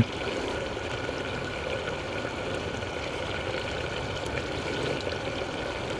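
Camp stove burning under the cooking pot with a steady hiss.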